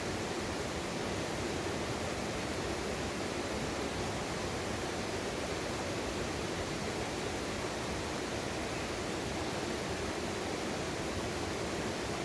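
Mountain valley stream flowing: a steady, even rush of water with no change throughout.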